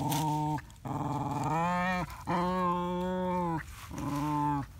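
Puppies play-fighting, one giving four drawn-out growls, each about a second long with short breaks between.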